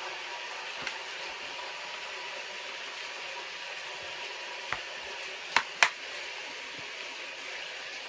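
Steady hiss of rain falling, with a few sharp clicks and knocks, the two loudest in quick succession a little past halfway.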